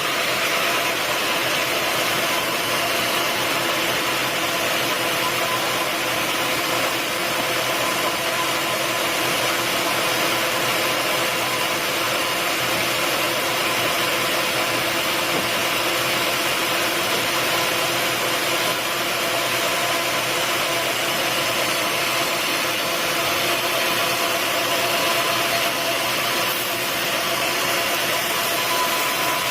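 Sawmill machinery running steadily: a constant mechanical hum with a few steady tones over a broad hiss, holding one level throughout.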